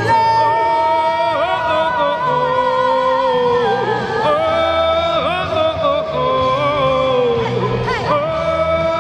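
A female vocalist sings long, held notes with vibrato and slides over a backing track with a steady bass line, during a stage sound check.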